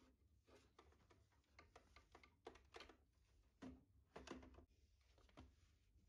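Faint, irregular swishes and light taps of a cloth wiping a wooden shelf and an old telephone, with small knocks as things on the shelf are handled.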